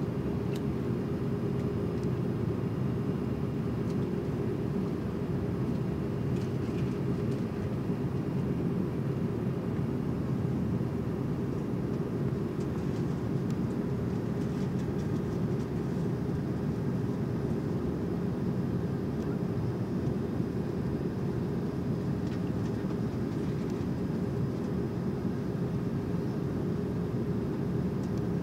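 Steady cabin noise inside an Airbus A330-300 taxiing on the ground: the engines at low taxi power give an even, unbroken drone with a held low hum.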